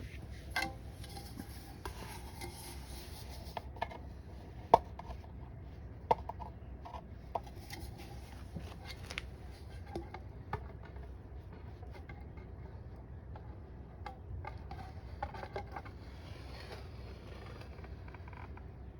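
Small wood fire burning in a compact camp wood stove, crackling with irregular sharp pops, the loudest about five seconds in, over a steady low rumble.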